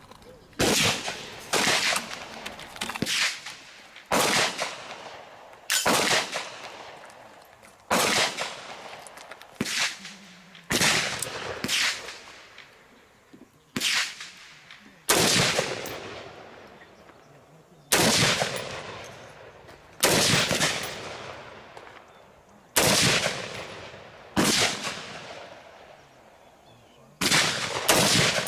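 Gunfire: about twenty single shots at irregular intervals of roughly one to two seconds, each sharp crack followed by a long echoing tail.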